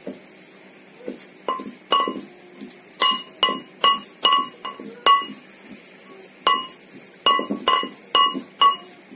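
Pestle pounding soaked raw rice into flour in a metal mortar. Each stroke lands with a ringing metallic clink, about two to three strokes a second, with a short break partway through.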